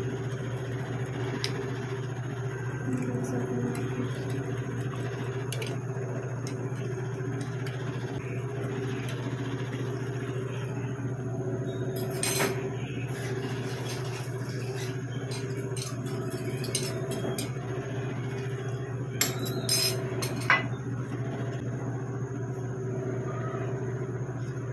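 Pan of pork simmering in its marinade on a stove, over a steady low hum, with a few sharp clinks about halfway through and again later.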